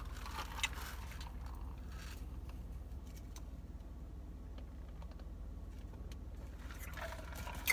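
Faint handling noises, small clicks and rustles, as a fountain-drink cup is picked up and sipped through a straw. A steady low hum inside a car runs underneath.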